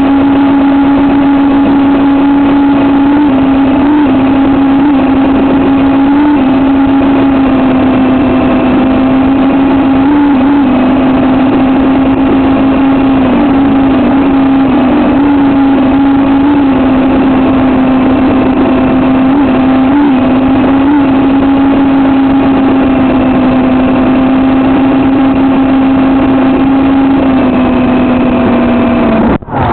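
Electric motors and coaxial rotors of a 200 g RC coaxial helicopter, heard from directly beneath it: a loud, steady hum with a whine above it, wavering slightly in pitch now and then. Near the end the pitch sags a little and the sound cuts off abruptly.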